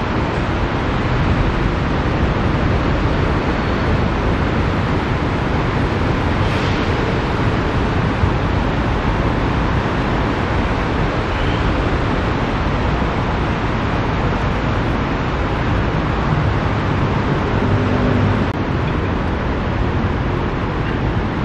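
Steady rushing noise of heavy rain and running floodwater mixed with road traffic.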